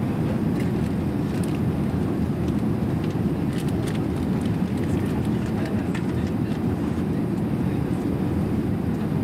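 Airbus A380 cabin noise in cruise: a steady low drone of engines and airflow.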